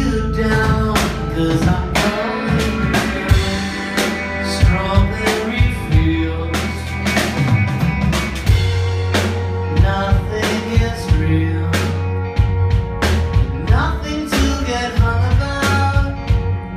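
Live rock band playing: drum kit keeping a steady beat with cymbal and snare hits, electric guitar, bass and piano, with a voice singing at times.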